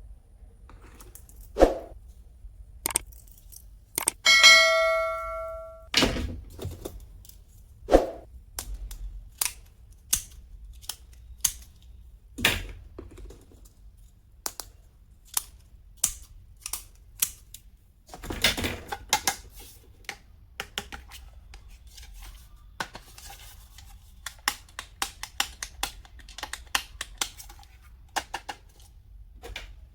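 Stationery items being handled and set down: irregular clicks, taps and knocks, with a single ringing chime about four seconds in that fades over a second or two.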